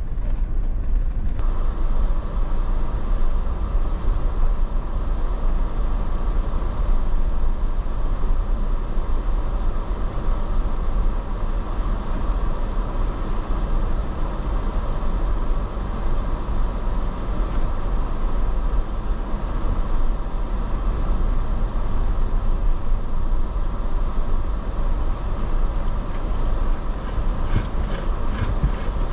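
Off-road vehicle driving on a dirt trail: a steady, loud, rough rumble of engine and tyres on the dirt, with a few small clicks near the end.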